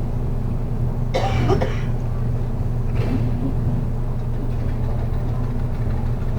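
Steady low drone of a city bus's engine heard from inside the passenger cabin, with a short sharp noise about a second in.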